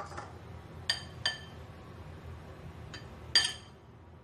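Metal spoon clinking against a ceramic bowl while marinade is spooned over a raw chicken: two light clinks about a second in, then a faint one and a louder one near the end, each with a short bright ring.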